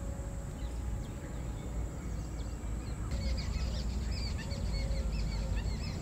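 Small birds chirping: a busy run of short, quick, high calls begins about three seconds in, over steady low background noise.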